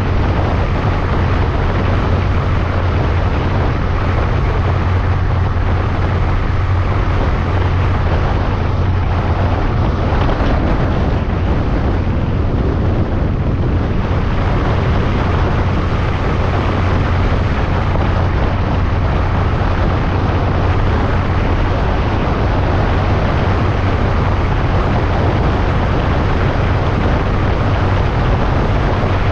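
Honda Monkey motorcycle cruising at a steady speed, its engine a constant low drone under heavy wind rush on the microphone.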